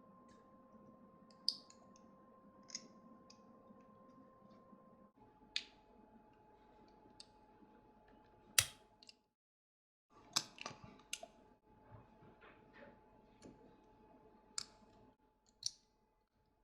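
Irregular light clicks and taps from small hard parts being handled, over a faint steady hum that changes about five seconds in and briefly drops out near the middle.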